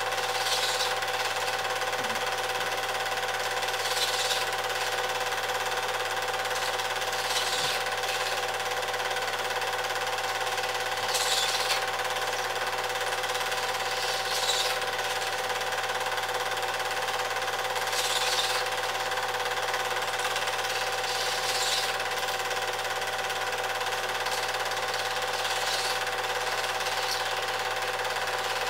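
Cine film projector running: a steady motor hum with fixed whining tones and a brief hiss every three to four seconds.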